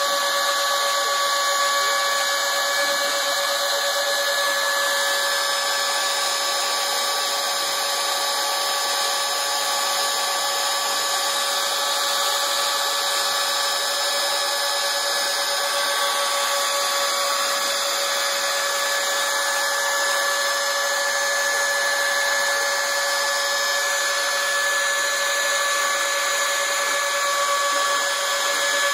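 Router on a drawer-slide CNC machine cutting lettering into pine, together with a Dyson vacuum sucking the dust away at the bit and the stepper motors driving the axes: a loud, steady whine over a rushing hiss that cuts off suddenly at the end.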